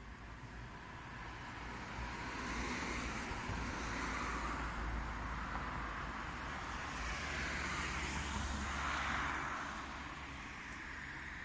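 Road traffic passing: a hiss of tyres and engines that swells a couple of seconds in, stays loud through the middle, and fades near the end, over a low rumble.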